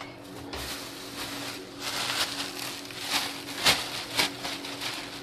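Clear plastic wrapping bag being pulled off and crumpled by hand, crinkling and crackling, with several sharper crackles in the second half. A faint steady hum runs underneath.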